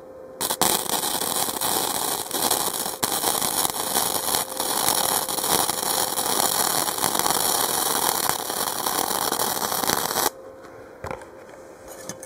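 Harbor Freight Easy-Flux 125 flux-core welder arc running a bead on thin exhaust pipe: a steady, dense crackle starting about half a second in and cutting off sharply after about ten seconds, followed by a couple of light clicks.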